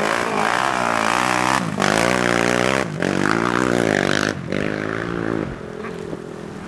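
Racing quad (ATV) engine accelerating hard through the gears. Its pitch climbs, then breaks off at each shift, four or five times, and it fades toward the end.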